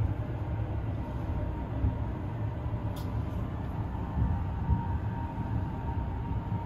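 Steady low rumble of a CNR-built sleeper car on the move, heard from inside the compartment, with a faint steady whine and a single sharp click about three seconds in.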